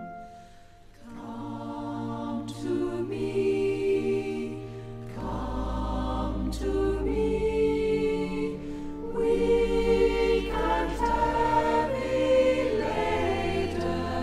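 A choir singing a slow worship song in sustained chords, with a low bass note coming in about five seconds in.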